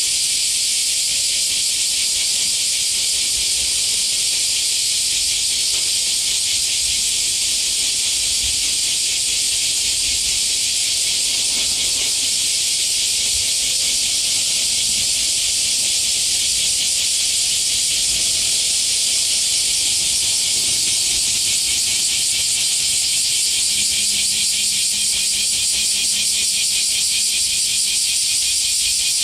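Loud, unbroken chorus of cicadas: a dense, high, shrill buzzing that holds steady.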